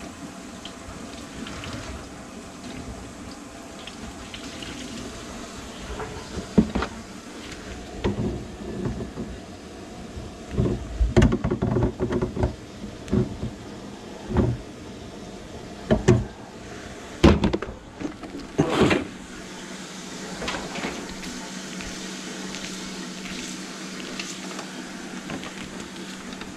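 Irregular knocks and clatters of plumbing tools and drain-cleaning gear being handled under a kitchen sink, over a steady low hum.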